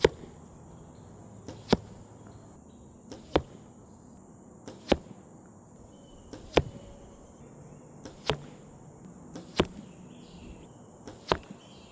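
Arrow shot from a bow and striking a 3D foam target: a faint click and then a sharp smack, eight times at an even pace of about one every second and a half.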